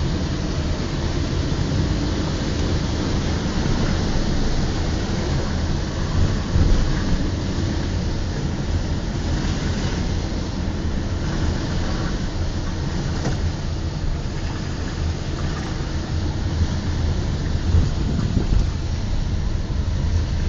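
Car being driven, heard from inside: a steady low engine and road rumble with a hiss of tyre noise.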